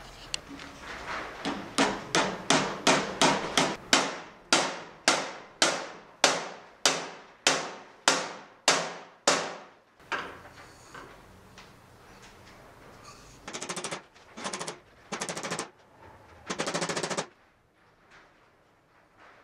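A string of about twenty hammer blows, each ringing briefly, as the steel ball peen hammer head is driven down onto its new wooden handle. The blows come quickly at first, then settle to about one every half second or so. Near the end come four short rasping strokes.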